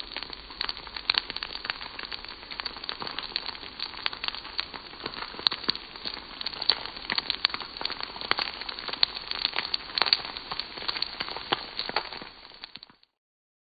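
Fried rice sizzling in a hot carbon steel wok as it is stirred with a metal wok spatula, with many sharp crackles over the sizzle. It fades out near the end.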